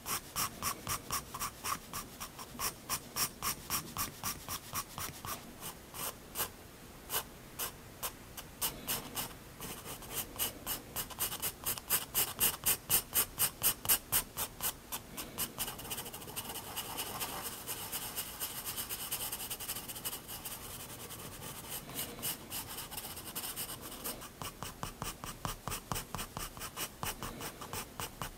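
7B graphite pencil (Prismacolor Turquoise) scratching quick short strokes on sketchbook paper, about three strokes a second. For several seconds past the middle the strokes run together into a steadier scratching, then separate again.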